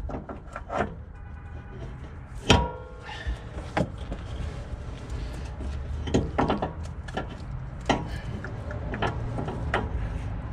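Scattered knocks, clicks and scrapes of a new rear engine mount for a 2014 Chevrolet Traverse being worked into its guide hole against the engine and subframe. About two and a half seconds in comes one louder metallic clank that rings briefly.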